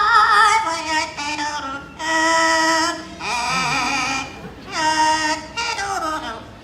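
Yellow-naped Amazon parrot singing a song it has learned by mimicry: several phrases of held notes with a wavering, vibrato-like pitch, each a second or so long, with short breaks between them.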